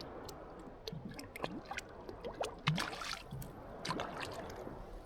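Water splashing and dripping around a kayak, with scattered irregular clicks and knocks, while a hooked fish is fought alongside.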